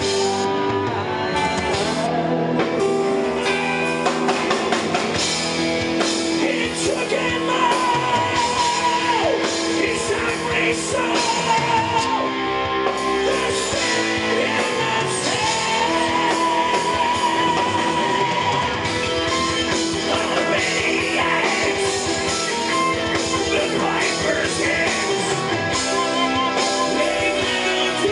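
Rock band playing live: a male lead singer holding long notes with vibrato over electric guitars and bass guitar.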